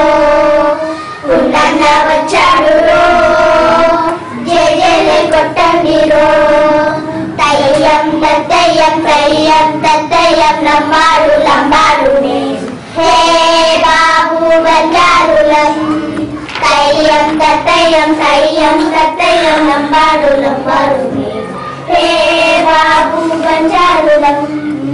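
Children's voices singing a song in phrases a few seconds long, with short breaks between the phrases.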